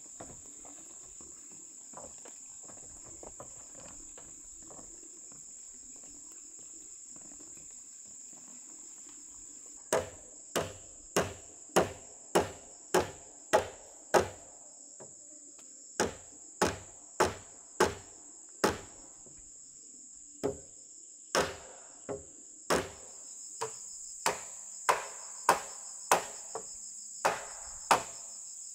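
Hammer driving nails into the wooden roof frame: sharp knocks about two a second, beginning about a third of the way in and coming in runs of several with short pauses. Under them, a steady high-pitched insect chorus.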